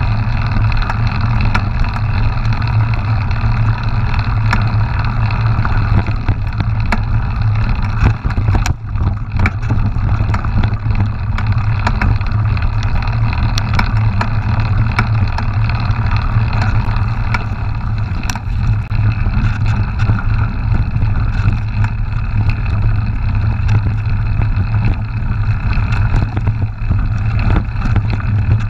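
Steady rumble of wind and rolling noise on an action camera's microphone while riding a mountain bike along a rough dirt track, with scattered clicks and rattles from the bumps.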